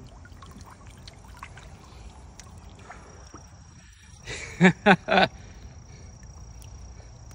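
A man's voice gives three quick, loud exclamations without words, a little past the middle. Under it runs a steady, high insect buzz, with faint drips and small knocks of water and gear around the kayak.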